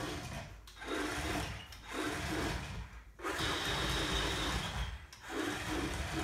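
Two remote-control Steam 'n Speed Thomas toy engines running on a hardwood floor: a rushing, whirring noise from their motors, wheels and loud speakers, which cuts out briefly four times.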